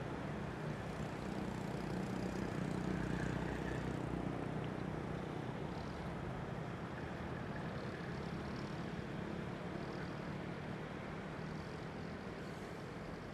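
Steady rush-hour road traffic: cars passing with a continuous low rumble of engines and tyre noise. It swells a few seconds in as a heavier stream of vehicles goes by, then eases off.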